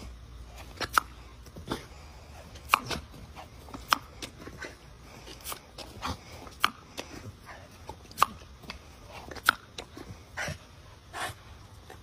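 An Australian cattle dog snapping and biting at the spray from a garden hose nozzle, making short sharp sounds about once a second over the steady hiss of the water spray.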